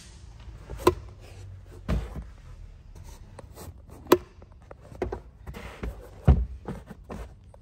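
Third-row seats of a Mitsubishi Outlander being handled and folded down: two sharp latch clicks and two dull thuds as the seat backs drop, with fabric and carpet rustling between.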